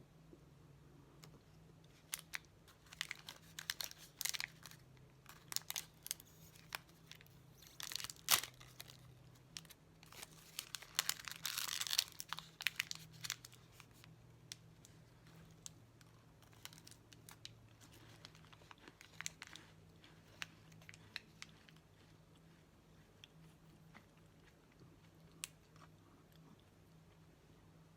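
Crinkling and tearing of a wrapper or packaging being handled and opened, in irregular bursts that are busiest about eight and eleven to twelve seconds in, then thinning to a few scattered small clicks.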